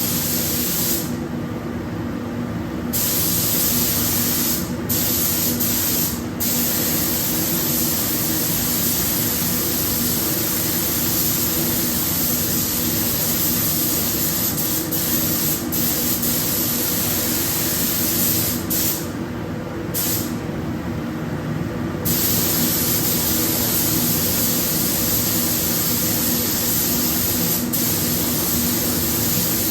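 Compressed-air paint spray gun hissing steadily while spraying paint, with short breaks in the hiss about a second in, twice around five to six seconds, and twice around twenty seconds in. A steady hum runs underneath.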